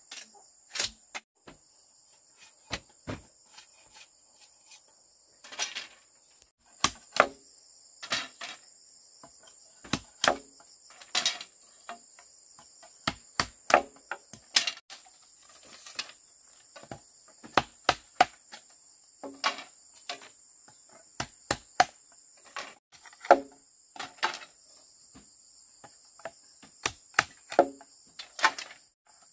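Irregular sharp knocks, some single and some in quick runs of two or three, over a steady high-pitched chorus of insects.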